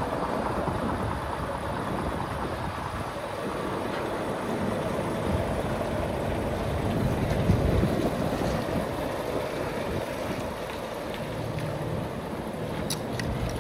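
Wind buffeting the microphone over a low outdoor rumble, with a faint steady hum in the last few seconds and a couple of short clicks near the end.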